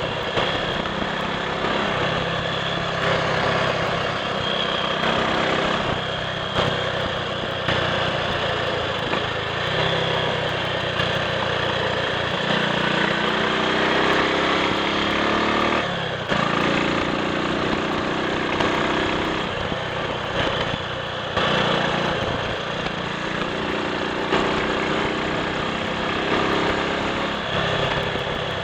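Triumph Sports Cub's single-cylinder four-stroke engine running on the road, its note climbing as it pulls and then breaking off briefly, as at gear changes, about halfway through and again about three quarters through, over a steady rush of noise.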